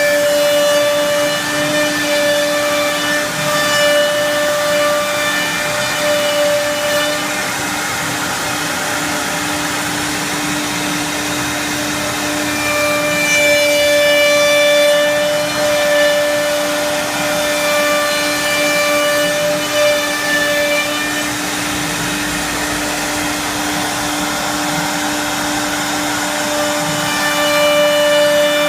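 Three-head CNC wood router running, its spindles whining steadily over the noise of cutting wood. A second, higher whine comes in for stretches of several seconds and drops out again, three times.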